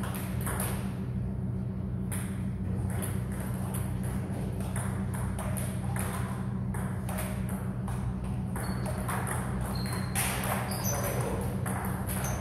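Table tennis ball clicking off bats and table in quick, irregular succession during play, over a steady low hum. A few short high squeaks come in near the end.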